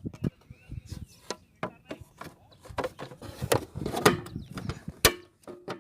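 Irregular clicks and knocks of hands handling parts while fitting a capacitor into a motorcycle's battery compartment in place of the battery.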